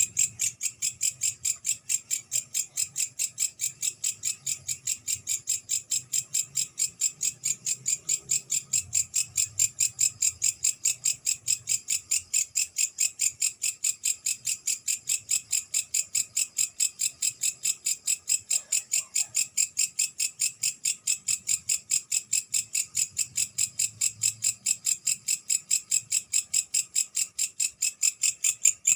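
A katydid (night grasshopper) singing: a steady, high-pitched train of rhythmic chirps, about four a second, held unbroken.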